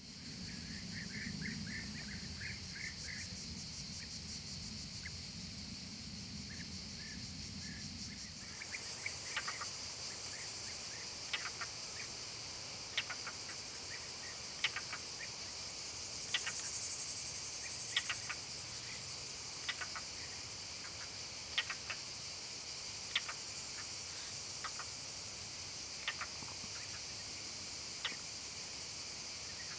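Steady, high-pitched chorus of insects chirping in summer countryside. From about nine seconds in, short sharp ticks or chirps stand out above it about every second and a half. During the first eight seconds a low hum lies underneath.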